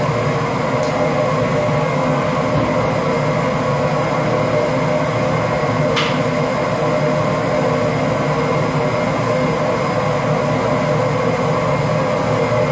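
Drum coffee roaster running just after the drop, its cooling tray's stirring arms turning freshly roasted beans while the fans run: a loud, steady mechanical whir. One sharp click about six seconds in.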